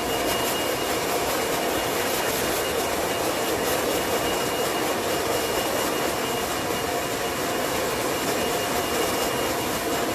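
Steady rush of air from an electric motor-driven appliance running without change, with a thin high whine over it.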